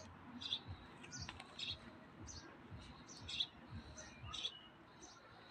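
Small birds chirping: short, high chirps repeating about twice a second.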